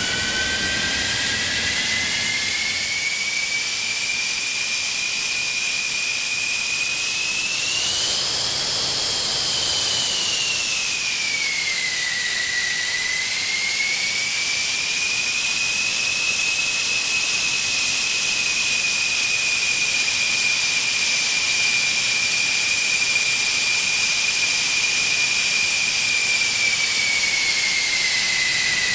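Jet engine running: a high turbine whine over a steady rush of hiss. The whine climbs at the start, rises briefly and falls back about a third of the way through, then holds steady and dips slightly near the end.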